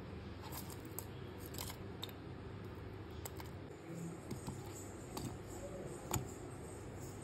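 Light taps and clicks of onion, ginger, garlic and tomato pieces being dropped into a stainless steel mixer-grinder jar, over a low steady hum; the sharpest click comes about six seconds in.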